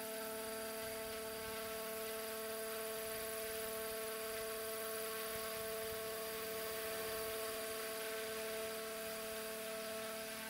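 Electric 700-size radio-controlled scale helicopter in flight, its brushless motor and rotors giving a steady whining hum made of several held tones.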